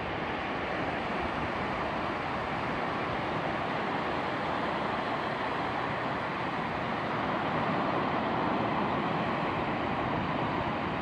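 Ocean surf washing onto a sandy beach: a steady rushing wash that swells a little about two-thirds of the way through.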